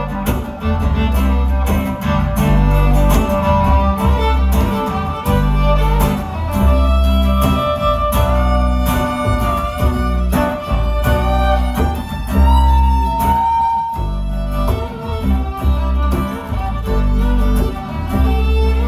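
Instrumental break of a country/bluegrass-style song: a fiddle plays the lead melody over strummed guitar and a walking bass, with one long held fiddle note about two-thirds of the way through.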